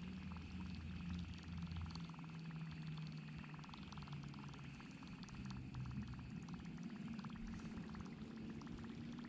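Shimano Stradic CI4+ spinning reel being cranked steadily on a retrieve: a soft, fast, even whirring rattle over a low hum.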